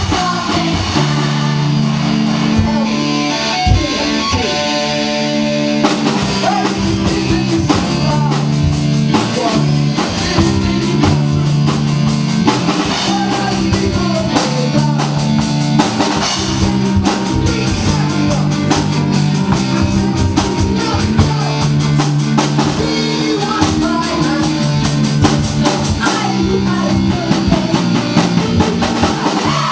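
Rock-style music with guitar, a bass line and a drum kit keeping a steady beat, without words.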